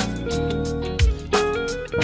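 Archtop electric guitar playing a melodic line of single notes, picked one after another, over a few deep thumps about a second apart.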